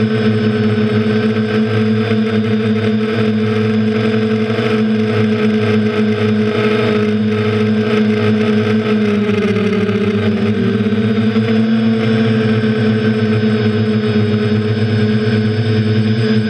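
Quadcopter's electric motors and propellers whining steadily, heard up close from the craft's own camera; the pitch dips briefly about halfway through and then rises back.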